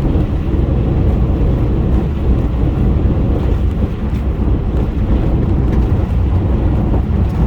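Steady road rumble from a car's tyres running at highway speed over a rough, patched interstate surface.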